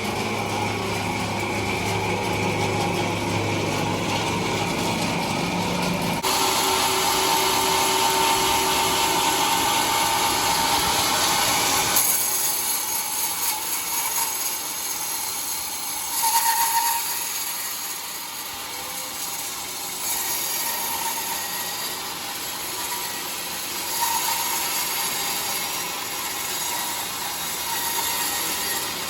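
Sawmill saw cutting through a trembesi (rain tree) log: a steady, loud machine-and-cutting noise whose character changes abruptly about six and twelve seconds in, with a brief louder surge a little past the middle.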